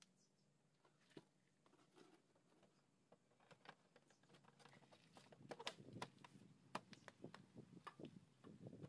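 Faint, scattered clicks and taps of small scooter parts and hand tools being handled, sparse at first and busier from about four seconds in.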